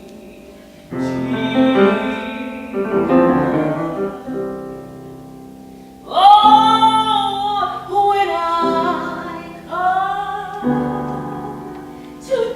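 Piano playing a sacred piece, with a woman's singing voice coming in about six seconds in, its pitch wavering with vibrato over the piano.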